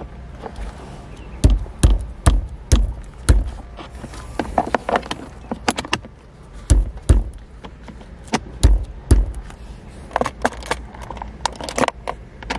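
Plastic shift-boot trim ring being worked and pressed down into a car's centre console around the manual shifter: a run of sharp plastic clicks and knocks, with several heavier thumps as it is pushed into place.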